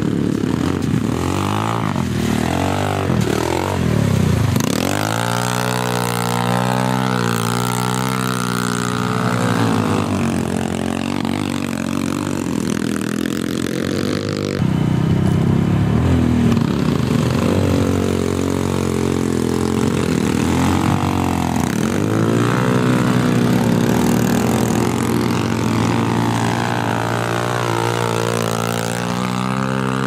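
Motoland XR 250 enduro dirt bike's single-cylinder 250 cc engine revving up and down repeatedly as it rides through deep mud. The sound changes abruptly about halfway through.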